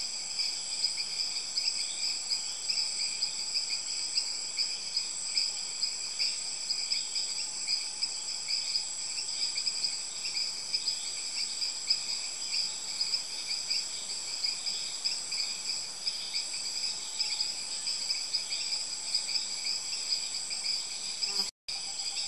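Steady, high-pitched chorus of insects, several trilling at once at different pitches, with a brief cut-out just before the end.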